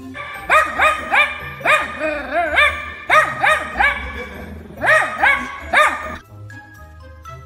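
A small dog barking in quick runs of high-pitched yips, two to four at a time, stopping about six seconds in. Background music runs underneath.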